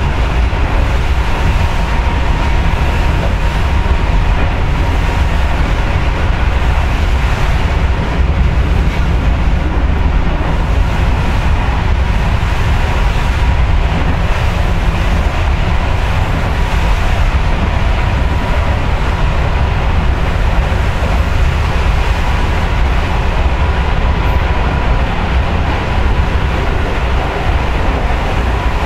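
Inside a Yagan Railway 6050 series electric train running along the line: a steady heavy rumble of wheels, bogies and motors, with a thin constant whine above it.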